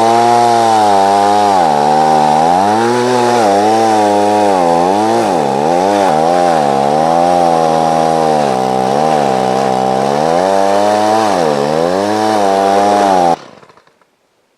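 A 14-inch gas chainsaw cutting into a tree trunk to fell it, its engine speed repeatedly dipping and picking up again as the chain bites under load. It cuts off abruptly near the end.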